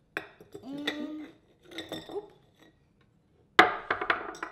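Frozen strawberries tipped from a glass bowl into a glass mason jar, clinking and clattering against the glass in several short bursts, the loudest and densest clatter near the end.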